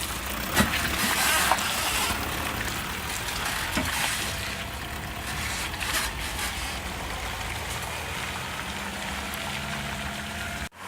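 Toyota Hilux 2.5 L diesel running at low revs while crawling off-road, with scattered clicks and knocks over a steady hum.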